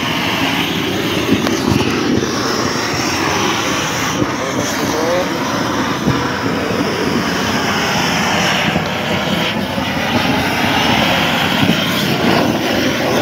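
Propane roofing torch burning steadily, a continuous low rush of flame as it heats a bitumen waterproofing membrane for torch-on laying.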